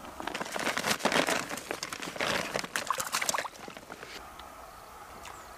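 Crunching and rustling for about three seconds as footsteps go down a bank of loose dry soil and stones and a nylon mesh keep net is handled to put a fish in, then it settles to a quieter background.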